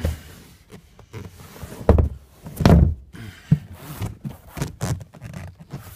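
Vinyl-covered boat bow seat cushions being lifted and handled: several dull thumps with rubbing between them.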